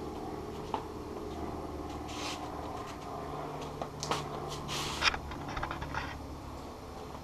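Steady low hum, with scattered scuffs and knocks from someone moving about close by, the loudest about five seconds in.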